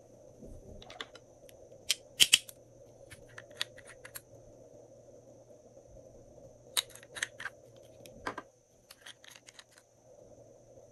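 Small glass nail polish bottles being handled and opened: sharp clicks and taps of caps and glass, in several short clusters, loudest about two seconds in.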